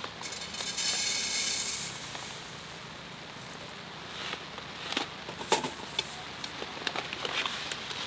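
Dry porang rice grains poured with a hissing rattle for about two seconds, then a plastic packet crinkling and crackling in the hands with scattered clicks.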